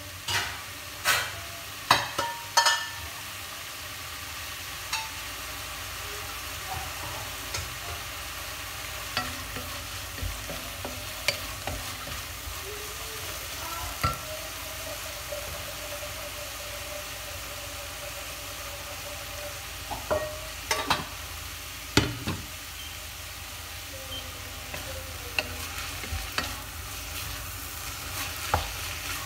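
Beef and green beans sizzling steadily in oil in a stainless-steel pot, stir-fried with a wooden spatula. A few sharp knocks of the spatula against the pot come in clusters: near the start, about two-thirds of the way through, and again near the end.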